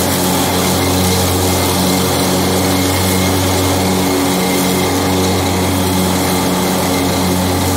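John Deere X724 garden tractor running steadily under load while mowing, its engine giving a constant low hum with a pulsing drone and the spinning mower deck adding a steady rushing hiss.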